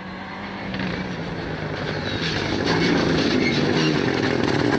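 Rally car engine running hard at high revs, its note stepping up and down with throttle and gear changes. It grows louder over the first three seconds or so as the car comes closer.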